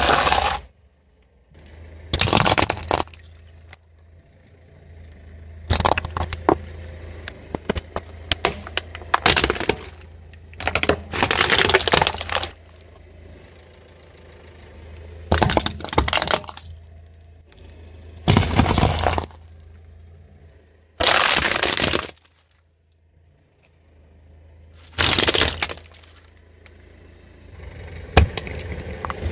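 A car tyre crushing a series of objects such as bell peppers, plastic toy vehicles and a coconut. About ten separate bursts of crunching and cracking, each a second or less, with a low hum underneath between them.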